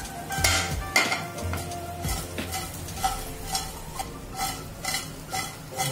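Fried chicken pieces sizzling in a little hot oil in a nonstick frying pan as they are stirred and tossed with a spatula, the spatula scraping the pan about twice a second.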